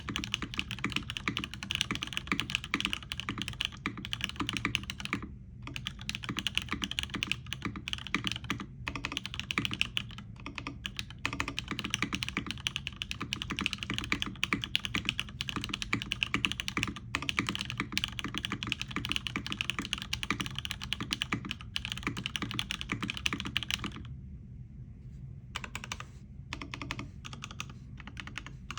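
Continuous fast typing on a mechanical keyboard with Cherry MX Nixie switches on an aluminium plate, topped with Cherry SAV PBT keycaps in an OTD 360C case. The keystrokes come in a dense stream with brief pauses about five and nine seconds in, and a longer pause near the end followed by a few scattered keystrokes.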